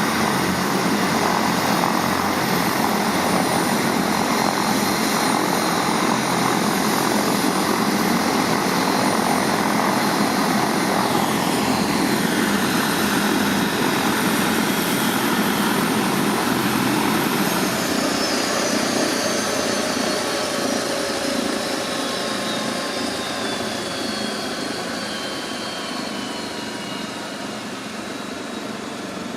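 Bo 105 helicopter's rotor and turboshaft engines running loud and steady; about two-thirds of the way in, a high turbine whine begins falling in pitch and the whole sound slowly fades.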